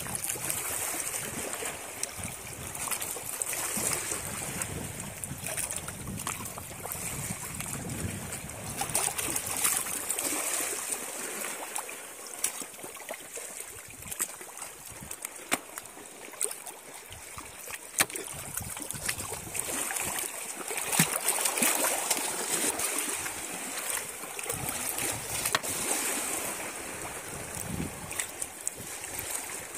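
Shallow seawater sloshing and splashing around feet wading over a rocky bottom, with a few sharp taps.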